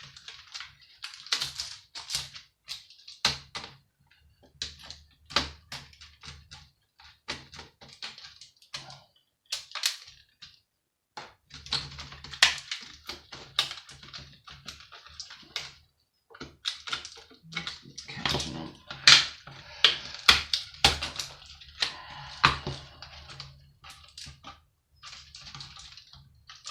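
Irregular clicks, taps and rattles of tools and plastic and metal parts being handled as a computer monitor is taken apart for scrap, with a low hum coming and going in stretches.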